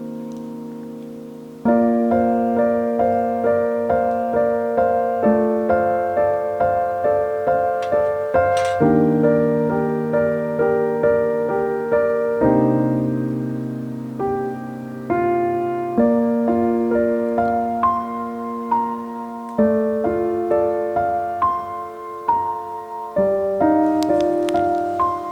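Background piano music: a gentle piece of chords and melody notes struck in a steady, unhurried pulse, each ringing and fading.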